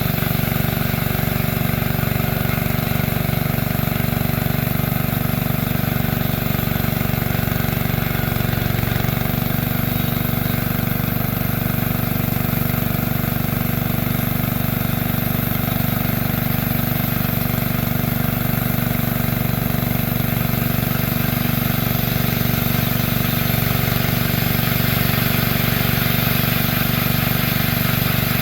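Engine of a homemade bandsaw mill running steadily at an even speed.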